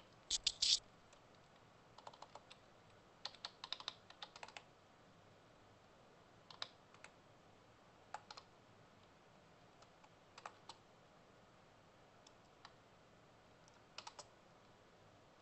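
Computer keyboard typing in short bursts of keystrokes with pauses between them, the loudest burst right at the start.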